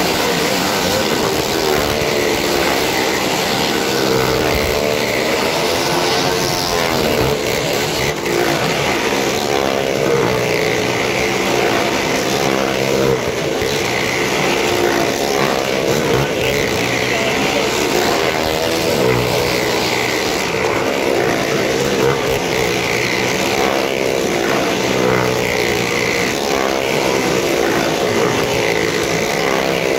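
Several motorcycle engines revving hard together as the bikes circle the wall of a well-of-death pit, their pitch rising and falling in waves.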